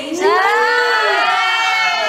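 A group of teenage girls cheering and shouting together, several voices holding one long drawn-out call that glides up and down in pitch.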